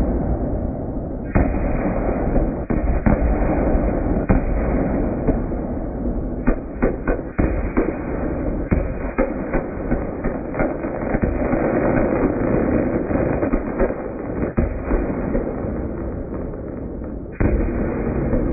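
Aerial fireworks finale: a continuous barrage of shell bursts and crackle, with a sudden louder burst about a second in and another near the end, and a quick volley of sharp pops about a third of the way through.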